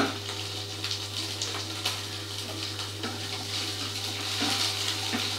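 Diced onions and green chilli sizzling in hot oil in a non-stick kadai while being stirred with a spatula: a steady frying hiss with scattered small crackles and scrapes.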